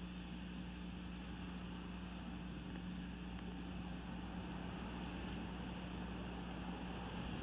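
Steady hiss with a constant low hum, unchanging throughout: background noise from a nest camera's microphone, with no eagle calls.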